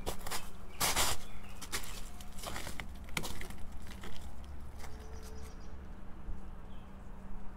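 Footsteps on hail-covered ground: a handful of uneven steps, heaviest about a second in and thinning out after the middle, over a steady low hum.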